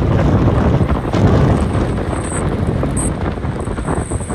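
Wind rushing over a phone's microphone held up through a car's open sunroof at expressway speed: a loud, steady rush.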